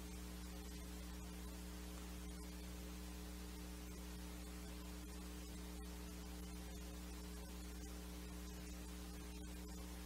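Steady low electrical mains hum over a faint hiss, unchanging throughout.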